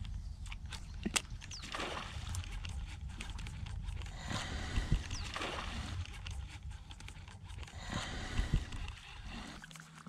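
Water sloshing and lapping around a kayak, in several swells over a steady low rumble, with a few sharp clicks.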